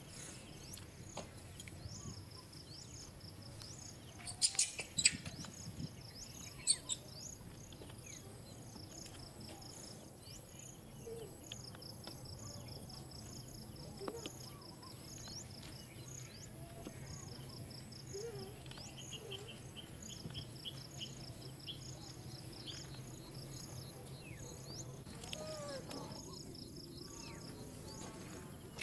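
Outdoor ambience: a faint high chirp repeating a few times a second over a low steady hum, with a few sharp clicks about four to seven seconds in.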